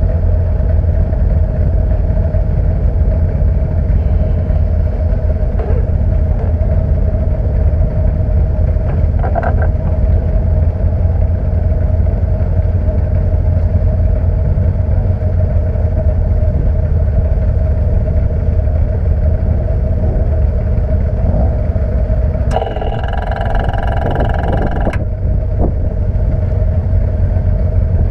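Alfa Romeo 1490 boxer engine of a Gallen LLG82 Group C race car idling steadily, heard from onboard the car. About 22 seconds in, a higher-pitched tone with many overtones cuts in for roughly two seconds.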